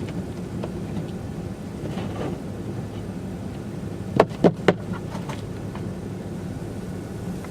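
Steady hum of a car's cabin while driving, with three sharp knocks in quick succession a little over four seconds in.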